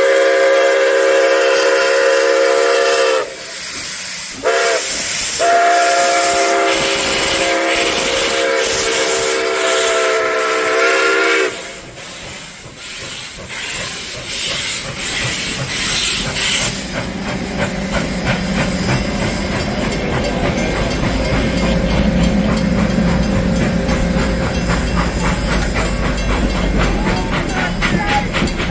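Nickel Plate Road 765, a 2-8-4 Berkshire steam locomotive, blows its chime whistle, several notes at once: a long blast, a short one, then a long one of about six seconds. It then pulls away, and its passenger coaches roll past with a low rumble and a quick clatter of wheels over the rail joints.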